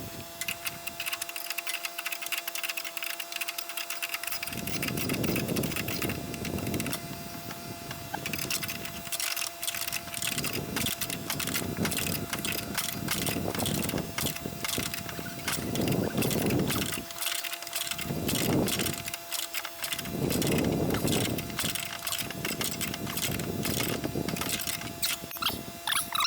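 Hand tools clicking and clinking on lawn mower deck metal while the blade spindle nut is fitted and tightened, many short clicks from about a third of the way in, with wind rumbling on the microphone.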